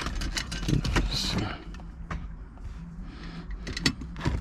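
Scattered clicks, knocks and a brief rustle of parts being handled as the shifter surround of a car's centre console is fitted back together, with one sharper click near the end.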